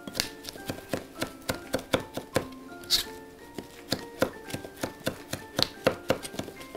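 Kitchen knife chopping shiso leaves together with miso on a wooden cutting board: quick, uneven strikes, several a second, over light background music.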